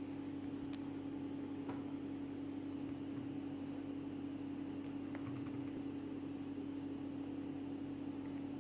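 A steady, even hum with a single low pitch, with a few faint light clicks now and then.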